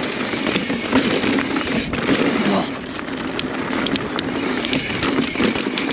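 Mountain bike riding down a dry dirt trail: tyres crackling and crunching over dirt and loose debris, with a steady rush of riding noise and many small clicks and rattles.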